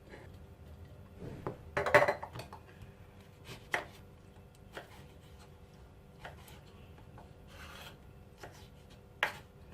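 Kitchen knife slicing through a lemon on a wooden cutting board: irregular knocks of the blade meeting the board, with some rubbing, the loudest about two seconds in.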